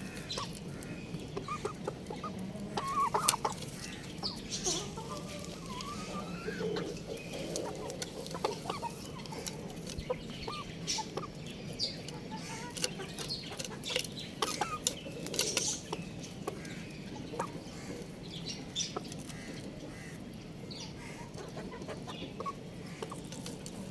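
Young rooster clucking with short chirping calls, the loudest about three seconds in, among scattered sharp clicks.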